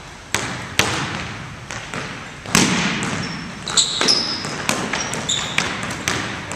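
Basketball dribbled on a hardwood gym floor: about a dozen uneven bounces ringing in a large hall, the hardest about two and a half seconds in. Short high sneaker squeaks on the floor come in around the middle and again later.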